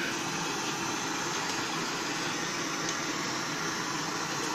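Steady background hiss of room noise, even and unbroken, with no distinct events.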